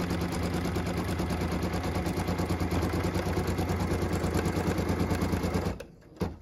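Embroidery machine stitching a cut line, a steady fast run of needle strokes over a low hum, stopping near the end with a brief click.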